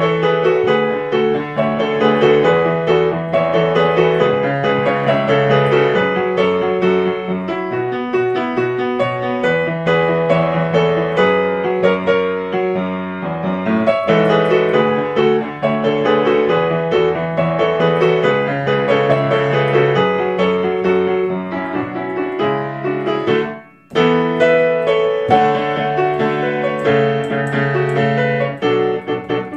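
Background piano music playing a steady, busy melody over a bass line; it drops out for a moment about three quarters of the way through and then starts again.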